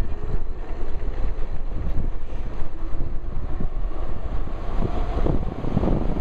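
Wind buffeting a shirt-pocket microphone while riding an electric bike, a low, uneven rumble that rises and falls in gusts.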